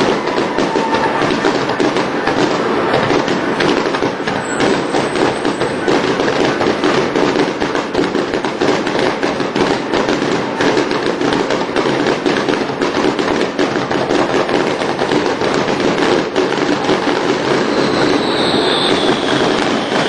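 Fireworks crackling: a dense, continuous rapid crackle of many small bursts that holds steady throughout. A falling whistle comes in near the end.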